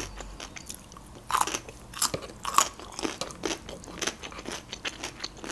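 Close-miked crunchy chewing of a fresh cucumber stick, with a few louder crunches between about one and a half and two and a half seconds in.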